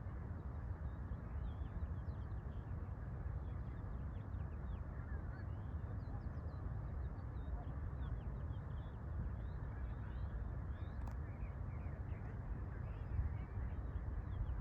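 Many birds giving short, high chirping calls, mostly quick downward slurs, scattered over a steady low rumbling noise.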